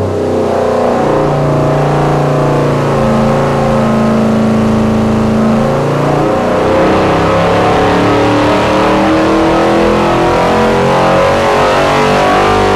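Freshly rebuilt Chevrolet 327 small-block V8 with a roller cam, running on an engine dyno. It holds steady speeds through the first half, then revs gradually higher in a slow, rising pull.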